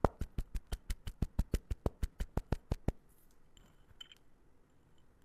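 A rapid, very even run of sharp clicks, about six a second, that stops about three seconds in, followed by a few faint ticks.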